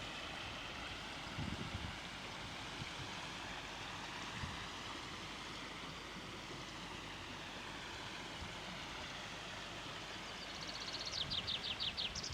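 Steady rushing of a waterfall and stream. Near the end a small bird sings a quick run of high, falling notes.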